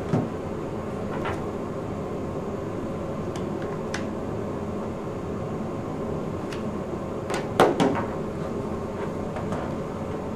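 A few light clicks and knocks of a laptop charger's plug and cable being handled and pushed into a laptop's charging socket, the loudest cluster of two or three knocks about seven and a half seconds in, over a steady room hum.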